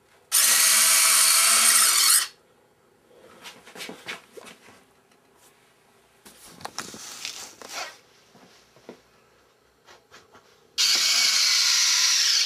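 Electric landing-gear retracts in a scratch-built RC jet model: the retract motors whir steadily for about two seconds as the gear tucks up, then after a pause with faint clicks, whir again for about two seconds as the gear swings back down.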